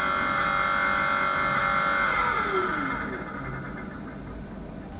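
Spectral MM automatic milling machine's motor whining steadily, then winding down with a falling pitch about two seconds in and fading as the machine reaches the end of its cycle.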